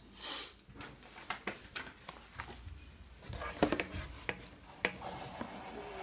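Handling noises: a brief rustle right at the start, then scattered light clicks and rubbing as the opened plastic fan base and its parts are handled, with a few sharper clicks a little past the middle.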